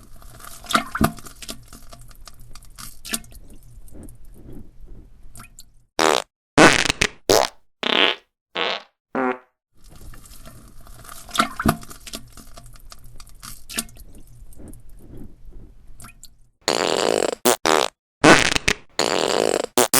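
Dubbed-in fart sound effects: quieter crackly stretches broken by loud clusters of farts about six seconds in and again near the end, the sequence repeating as a loop.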